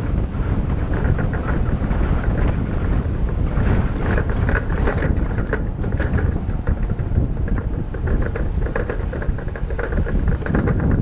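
Ford shuttle bus on the move, heard from inside: a steady low engine and road rumble with many small rattles and clicks.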